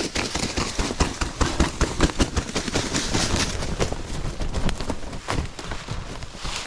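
Footsteps crunching and rustling through dry leaf litter and brush on a wooded hillside, with a rapid, irregular crackle throughout.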